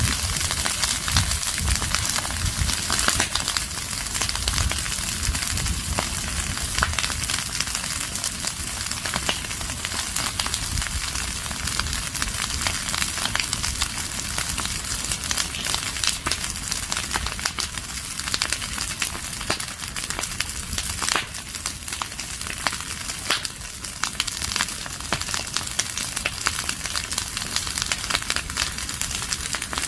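Fire of burning leaves and branches crackling and popping steadily, a dense stream of small snaps over a hiss.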